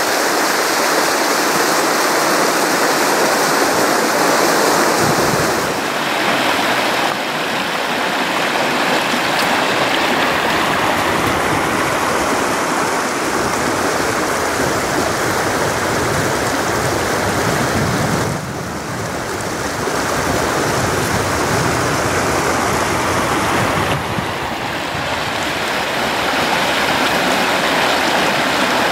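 Shallow river water rushing steadily over rocks and riffles. The sound shifts abruptly in level and tone a few times.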